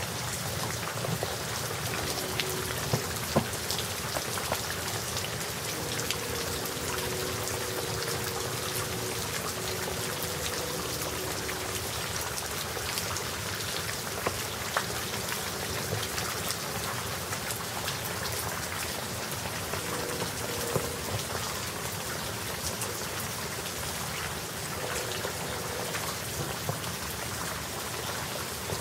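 Steady rain shower falling, an even hiss dotted with sharp taps of individual drops striking close by.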